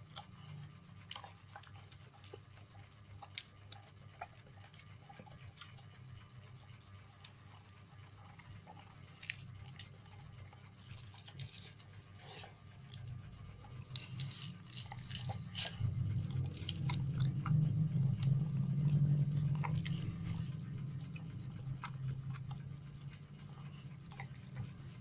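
A dog chewing and crunching on meat, with irregular sharp crunches throughout. A low rumble swells and is loudest in the middle of the stretch.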